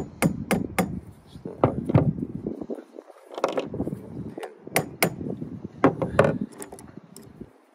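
Small hammer tapping at a pin in a Harken mainsheet traveller car's toggle fitting: a quick run of taps at first, then short groups of taps with pauses between, stopping shortly before the end.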